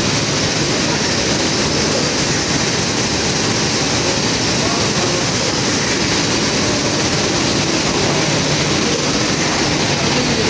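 Automatic cup-packaging machine running at production speed: a steady mechanical clatter from its conveyor and moving stations under a constant hiss, with no let-up.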